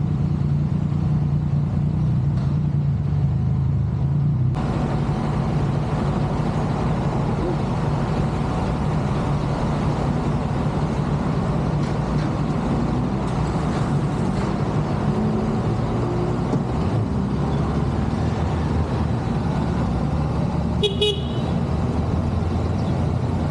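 A road vehicle's engine running steadily while under way, with a steady rush of road and wind noise that grows louder about four seconds in. A short horn toot sounds once near the end.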